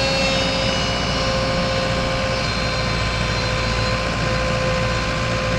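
Komatsu PC138US-2 excavator's diesel engine running steadily, with a constant whine over the low rumble.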